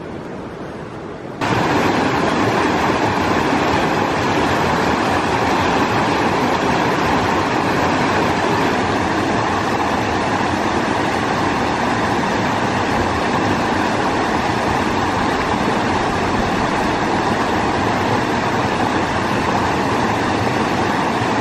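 Steady rushing of a river's water, close and loud. About a second and a half in it cuts in suddenly over a quieter, more distant rush of water.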